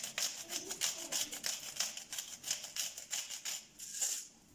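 Coarse salt rattling and crunching in a salt mill worked in quick strokes over a bowl of lamb chops, about five strokes a second, stopping shortly before the end.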